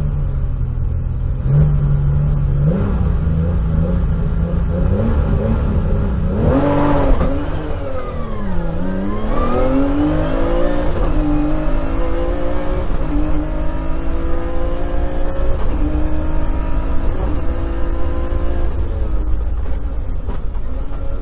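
Historic rally car's engine heard from inside the cabin: held at steady revs on the start line, then launched about six seconds in and accelerating hard through the gears, the note climbing and dropping back at each upshift.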